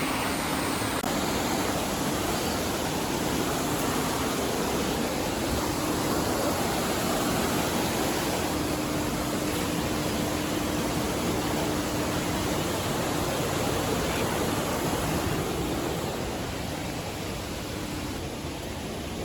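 River water rushing over boulders: a steady, even rush, easing slightly near the end.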